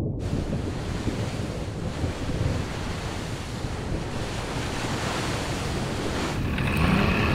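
Stormy sea sound effect: steady wind and surf noise that cuts in suddenly and holds on without a break.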